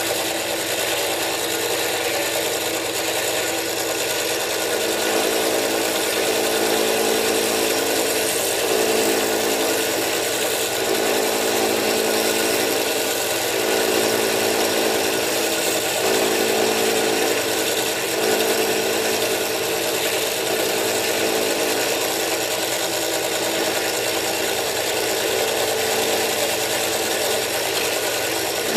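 Manual milling machine running steadily, its cutter milling the lock relief into a frame lock knife's frame.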